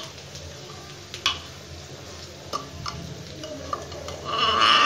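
Steel ladle tapping and clinking against the rim of an aluminium pressure cooker pot, a few separate sharp clicks, as foam is skimmed off boiling dal. There is a louder rush of noise near the end.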